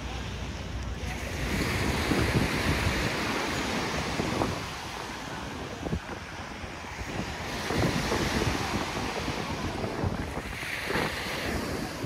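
Ocean surf breaking and washing up a sandy beach, swelling and easing twice, with wind buffeting the microphone.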